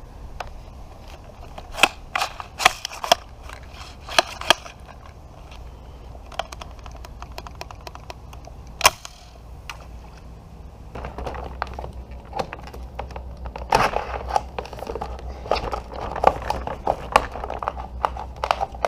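Hard plastic toy and its clamshell packaging being handled: a few sharp plastic clicks and snaps, then from about eleven seconds in a denser run of crackling and crinkling as the plastic packaging is worked open.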